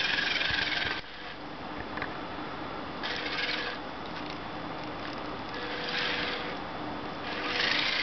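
Wowee Tribot toy robot's drive motors and gears whirring in several short bursts as it rolls and turns on carpet, over a steady faint hum.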